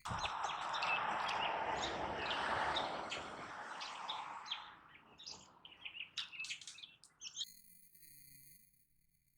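Birds chirping: a quick run of short chirps over a rushing noise for the first few seconds, then scattered chirps that stop about two seconds before the end, leaving faint steady tones.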